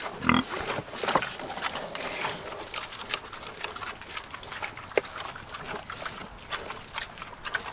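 Pigs eating at a feed pan: one short grunt at the start, then a run of quick clicking, smacking chewing noises.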